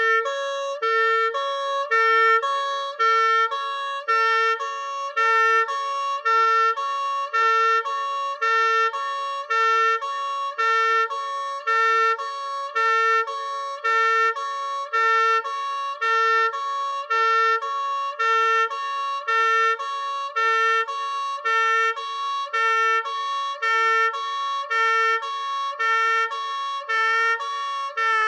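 Two-tone hi-lo siren alternating steadily between a lower and a higher pitch, one full cycle about every 1.3 seconds, with a buzzy, reedy tone.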